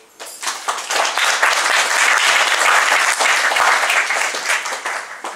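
Audience applauding, breaking out suddenly and fading away near the end.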